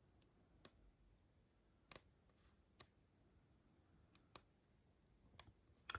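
Pages of a small paper magazine being flipped by hand, giving several faint, sharp clicks at irregular spacing as the pages snap past the thumb, over near silence.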